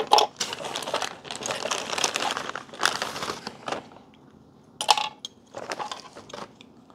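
A clear zip-lock plastic bag crinkling as it is handled, for about four seconds, then a sharp rustle near five seconds and a few more short rustles.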